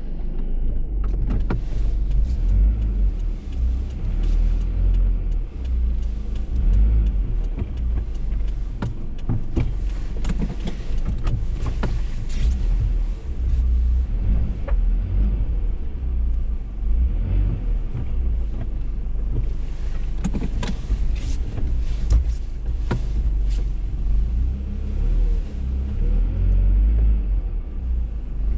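Car driving over a rutted, muddy dirt track, heard from inside the cabin: a steady low rumble from the engine and tyres, with frequent knocks and rattles from the suspension and body over the bumps.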